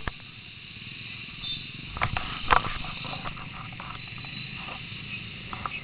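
Motorcycle engine and street traffic running as a steady low rumble with hiss, picked up by a small camera's microphone. A few sharp knocks and clatters come about two seconds in, the loudest about halfway through.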